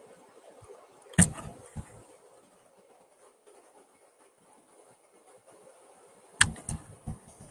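Sharp knocks: a loud one about a second in with a smaller one half a second later, then a quick run of three near the end, over a faint steady hiss with a thin high whine.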